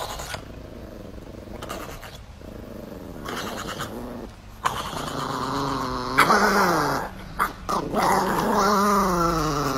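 Chihuahua howling in long, wavering calls that rise and fall in pitch, louder in the second half.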